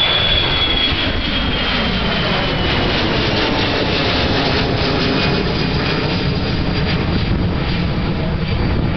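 Jet noise from a British Airways Boeing 737-500's CFM56-3 turbofans at takeoff power as the airliner climbs away: a steady, dense rumble with a high whine that slowly falls in pitch over the first few seconds.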